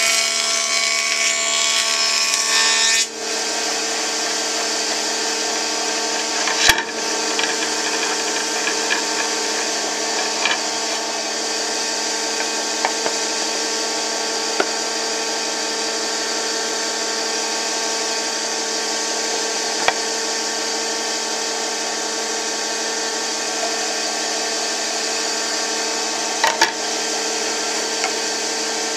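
Benchtop jointer cutting the edge of a board for about the first three seconds, then the cutterhead spinning free with a steady hum once the board is lifted off. A few sharp knocks come from the board being handled against the machine.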